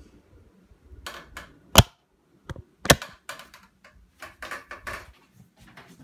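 A series of sharp clicks and light knocks with quiet gaps between them, two louder ones about a second apart near the middle.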